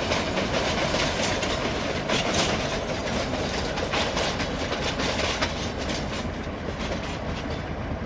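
Rear helper locomotives of a freight train, EMD GR12 diesels, rolling past, with wheels clicking over rail joints. The sound eases off slightly as the end of the train moves away.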